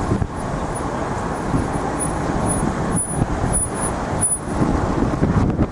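Steady city street traffic noise: a dense rumble of passing cars and trucks. Faint high pips sound about twice a second through the middle.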